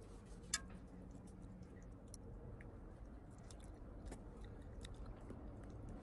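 Faint scattered clicks and taps of chopsticks and a serving spoon against a white braiser pan as fish is lifted out, with one sharper click about half a second in.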